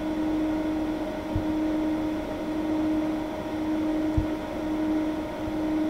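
Growatt solar inverter running: a steady electrical hum with overtones over a fan-like hiss. Two faint low thumps come about a second and a half and four seconds in.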